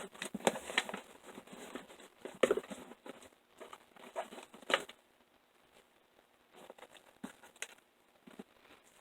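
Hand handling of small packed items being stuffed into a pair of children's shoes: crinkling, rustling and small knocks, busiest for the first five seconds, then only a few faint clicks.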